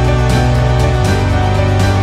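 Background music with a steady beat; the bass note shifts about a second in.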